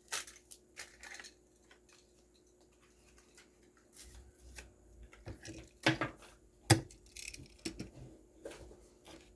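Plastic blister packaging and card backing of die-cast toy cars being handled and pried at: scattered crinkles and light clicks, with two sharper snaps about six and seven seconds in.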